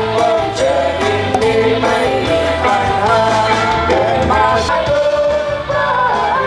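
Live band performing a song: a singer over drums, bass and backing instruments.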